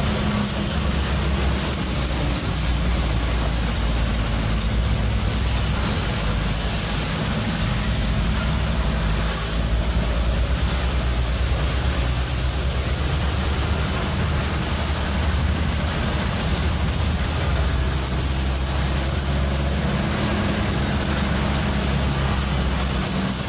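Truck engine running steadily with road noise while driving, with a thin high whistle wavering in pitch through most of it.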